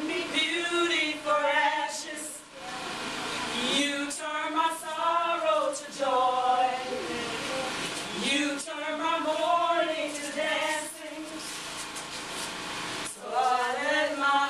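A worship song sung by voices, long held notes in phrases with brief breaks between them, and little to be heard of instruments. The singing drops back for a couple of seconds after the middle and swells again near the end.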